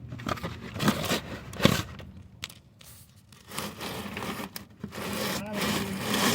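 Irregular scraping, rustling and crinkling handling noises, with a few sharp clicks.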